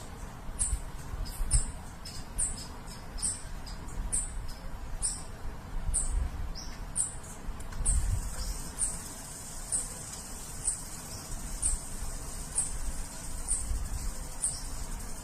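Small bird giving high, thin chirps about once a second. In the first half a second, slightly lower series of chirps overlaps them. A low rumble runs underneath.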